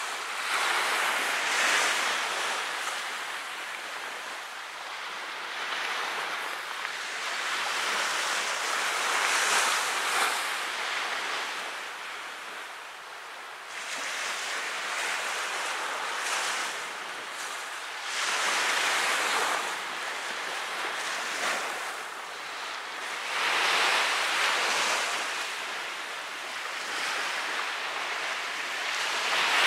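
Ocean surf breaking and washing up a sandy beach, the rush of noise swelling and ebbing every four to five seconds.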